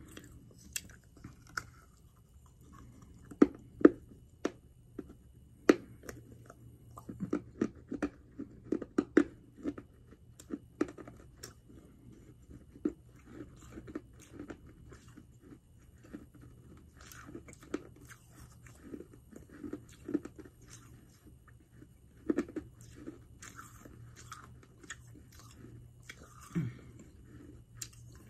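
Close-mouthed chewing of a piece of edible chalk: sharp, crisp crunches, thickest in the first ten seconds or so, then softer, sparser chewing.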